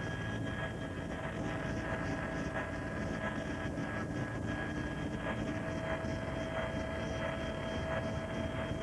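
Helicopter engine and rotor running steadily, heard from inside the cabin: an even rushing drone with a steady high whine on top.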